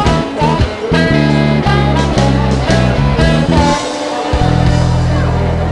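Background rock music with guitar, ending on a held low chord from about four seconds in.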